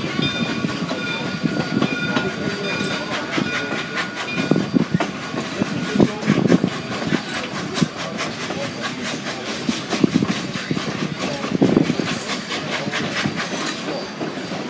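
Railway train rolling on jointed track, a steady rumble with the wheels clicking over the rail joints.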